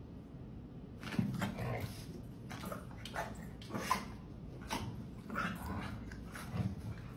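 A dog vocalizing in a series of short, repeated sounds, starting about a second in.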